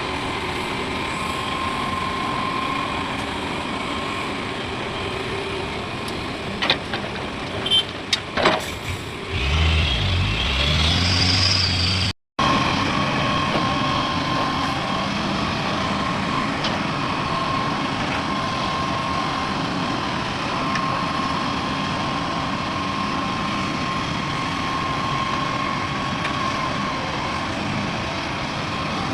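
Heavy diesel earthmoving machinery running steadily, with a thin steady whine over the engine noise. A few sharp knocks come about seven to nine seconds in, and a deeper rumble follows. The sound cuts out for an instant about twelve seconds in, then the same steady machine noise carries on.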